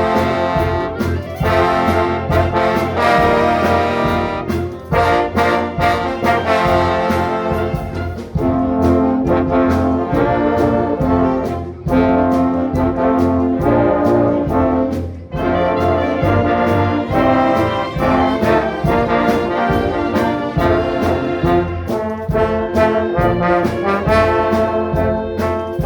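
Orchestra playing an instrumental worship piece, with brass (trumpets and trombones) prominent in sustained chords over a steady beat.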